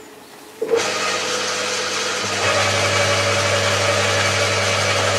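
Electric roller garden shredder switched on about half a second in, its motor running with a steady hum and gear whine. The hum grows louder about two seconds in.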